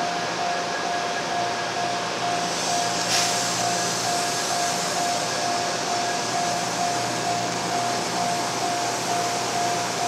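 Japanese level-crossing warning bell ringing in a rapid, even repeat over the steady rumble and hum of an N700-series Shinkansen trainset passing over the crossing. A short, sharp noise about three seconds in.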